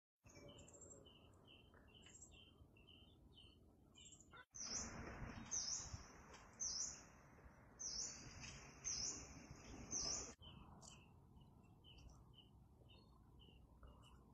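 Small animal calls chirping in a steady series, about two to three short chirps a second. In the middle a louder stretch cuts in and out abruptly, with a hiss and higher chirps that sweep downward about once a second.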